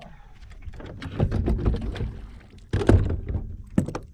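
Knocks and thunks of gear being moved around in a boat, in two louder clusters with a single sharp knock near the end.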